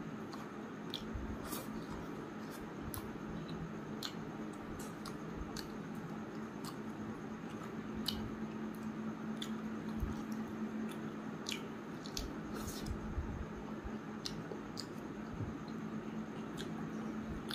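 Close-up eating sounds: wet squishing and irregular little clicks and smacks as a man chews and works rice and chicken liver curry together with his fingers. A steady low hum runs underneath.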